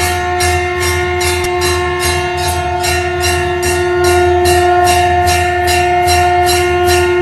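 Conch shell (shankh) blown in one long, steady note while a hand-rung temple bell clangs rapidly, about three strikes a second.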